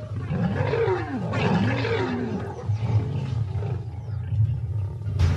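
Lions snarling and growling in a fight. Several rising and falling snarls come in the first couple of seconds, then a low, steady growling rumble.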